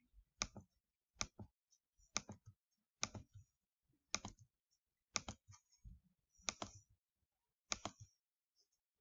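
Faint computer mouse clicks, each a quick press-and-release pair, about eight in all spaced roughly a second apart.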